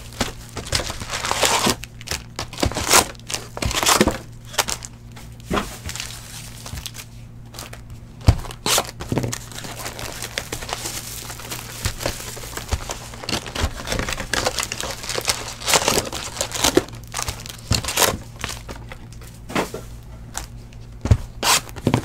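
Plastic shrink-wrap and foil card packs crinkling and tearing as hands unwrap a boxed set of trading-card packs, with irregular crackles and sharp snaps over a steady low hum.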